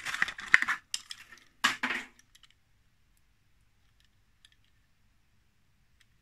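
Clear plastic blister pack and card crackling and clicking as a die-cast toy car is handled, for about two seconds, then only a few faint ticks of the car in the fingers.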